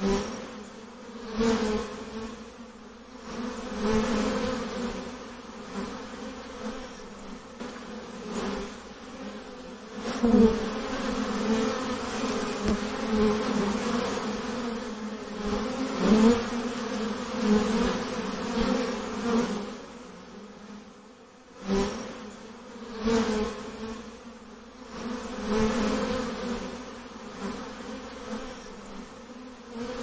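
Many honeybees buzzing around a hive entrance, their wingbeats blending into a steady hum that swells louder and fades again every few seconds.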